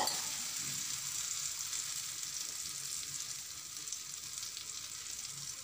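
Egg batter sizzling in hot oil on a flat iron tawa: a steady frying hiss that slowly dies down.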